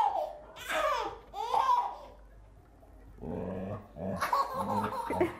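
A baby laughing and squealing, with a Doberman growling low in play from about three seconds in.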